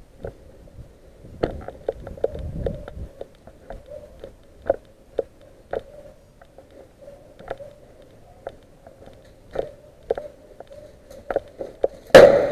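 Scattered sharp clicks and knocks, roughly one a second, over a faint steady hum, with a loud knock near the end.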